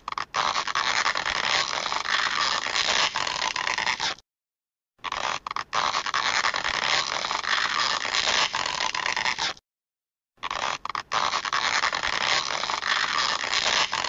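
Stretching sound effect, looped: a dense noisy stretch of sound about four and a half seconds long, with a few sharp clicks near its start. It cuts off dead about four seconds in and again just before ten seconds, and restarts after a silence of under a second each time.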